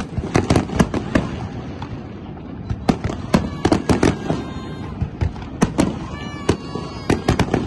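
Fireworks display: aerial shells bursting in quick, irregular succession, many sharp bangs over a steady low rumble, with a brief lull about two seconds in.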